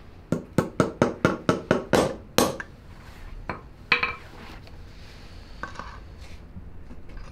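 Hammer tapping a metal socket to seat a new sealed wheel bearing into a Honda ATC 70 steel wheel hub: about nine quick ringing metallic strikes, about four a second, then a couple more near four seconds in.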